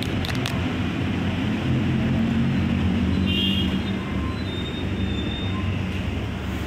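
Steady low engine rumble of road traffic.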